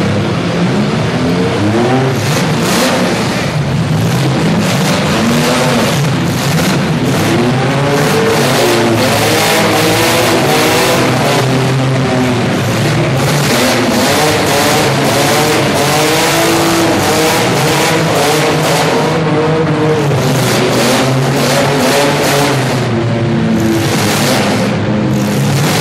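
Many compact demolition-derby cars' engines revving hard at once, pitches rising and falling, with repeated sharp bangs of cars crashing into each other throughout.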